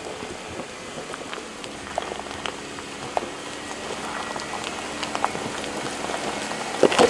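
Tyres of a 2015 Jeep Wrangler crunching and popping over stones, gravel and dry leaves at a slow crawl, with the engine running low underneath. The crackling grows louder as the Jeep comes closer, with a few sharp cracks near the end.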